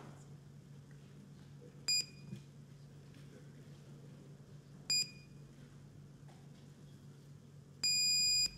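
Electronic voting system's countdown signal: a short high beep, another about three seconds later, then a longer beep near the end as the voting time runs out. A low steady hum runs underneath.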